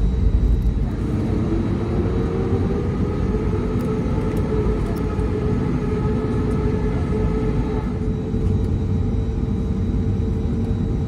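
Airbus A320neo jet engines heard inside the cabin: a steady low rumble with a whine that rises slightly in pitch over the first few seconds, then holds.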